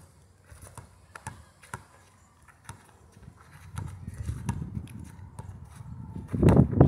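Basketball bouncing on an asphalt court: sharp, separate bounces about twice a second, then a louder, uneven low rumble of thuds that builds toward the end.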